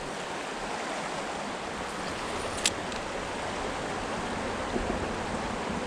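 Creek water running steadily, with one sharp click about two and a half seconds in.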